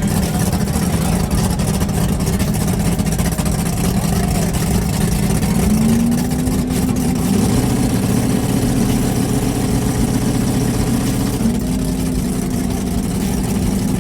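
Drag race car engines running at a steady idle, with the pitch stepping up slightly about six seconds in and again near the end.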